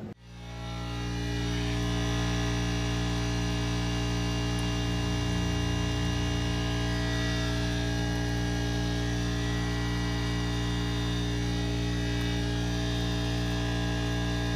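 Steady electrical hum, fading in over the first couple of seconds and then holding level.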